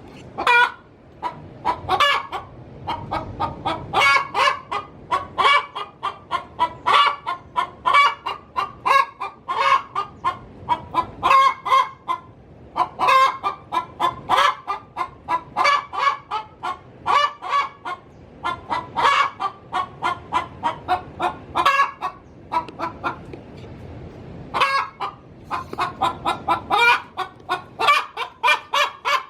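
Domestic hen cackling: rapid runs of short, sharp clucks in bouts with brief pauses. This is the hen's call when she is about to lay an egg.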